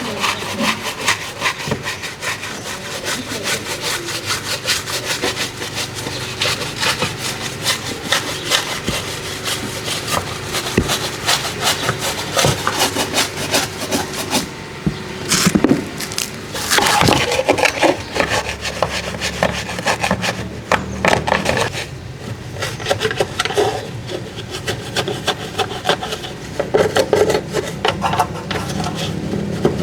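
A brush scrubbing a car surface in quick back-and-forth strokes, with a few louder scrapes around halfway through.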